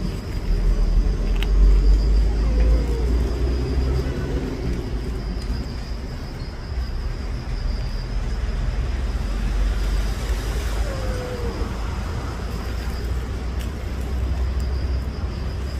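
Steady low rumble of road traffic, with a thin steady high tone running above it.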